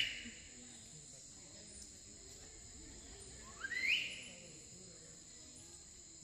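Steady high-pitched drone of tropical insects, with two loud rising whistled calls, one right at the start and another about three and a half seconds later.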